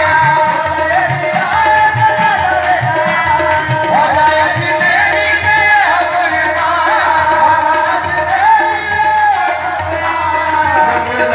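Qawwali: voices singing a wavering melody over steady held harmonium tones, with tabla keeping a regular beat.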